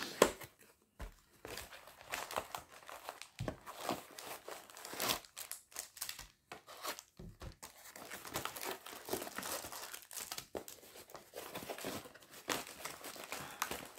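Packaging of a diamond painting kit being worked open by hand: irregular crinkling, rustling and tearing of the box and its wrapping.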